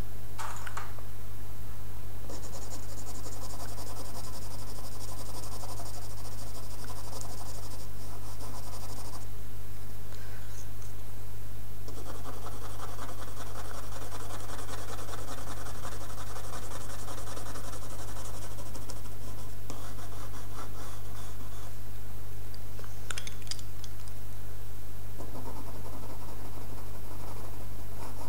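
Pencil shading on drawing paper: a dry scratching in three spells of rapid strokes with short pauses between them, over a steady low hum.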